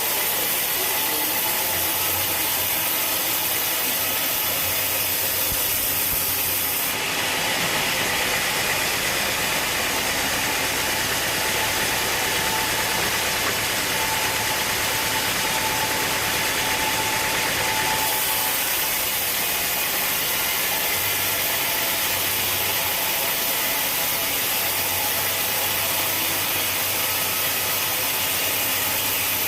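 Sawmill machinery running steadily. From about seven to eighteen seconds in, the sound turns harsher and higher, then settles back.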